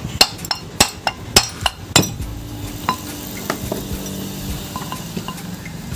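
A tool striking the metal cover of an old ceiling fan, about seven sharp ringing knocks at roughly three a second, then a few lighter clicks. The knocking frees the cover, which comes away with its bearing still in it.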